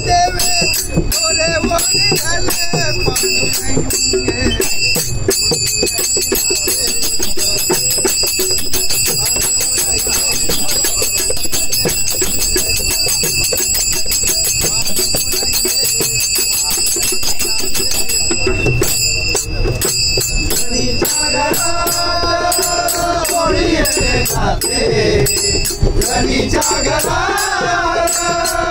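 Devotional bhajan music: brass hand cymbals (manjira) struck in a fast steady rhythm, ringing continuously over the beat of small hand drums. Sung voices come back in about three-quarters of the way through.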